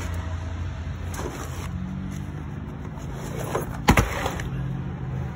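Steady low vehicle rumble outdoors, with a single sharp clank about four seconds in.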